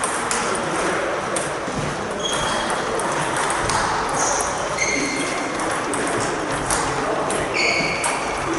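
Table tennis rally: the ball clicking sharply and irregularly off the bats and the table. A few short high squeaks of sports shoes on the wooden hall floor come in the second half.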